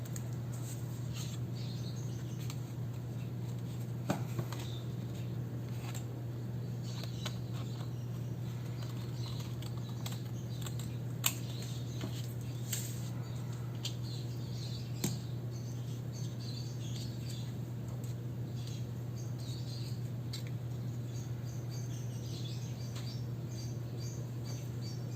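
Soft scratching and rustling of journalling at a desk, pen on paper and stationery being handled, with a few sharp little clicks, over a steady low hum.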